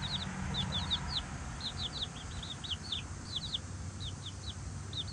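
Young chickens peeping: a steady run of short, high, falling peeps, several a second and often in quick pairs, over a low steady rumble.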